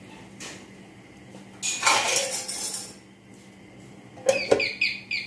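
Steel lid being put over a frying pan and pressed down to seal in charcoal smoke: a harsh metal-on-metal scrape and clatter, then a quick run of high squeaks as the lid grinds against the pan's rim near the end.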